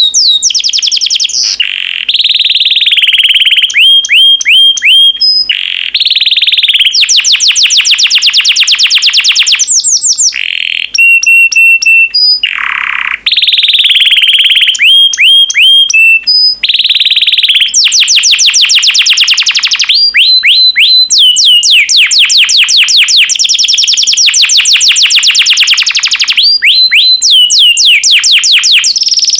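Yellow domestic canary singing a long, loud song of fast trills, each made of many quick falling notes, switching to a new phrase every second or two.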